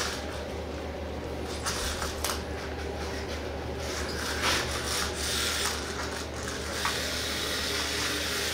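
Scratchy rubbing and scraping as a cat plays with a toy, uneven, with a few sharper scrapes.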